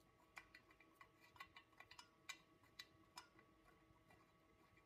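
Faint, irregular small metallic clicks and taps as timing-cover bolts are started by hand into an aluminium engine timing cover, the cover shifting against the block.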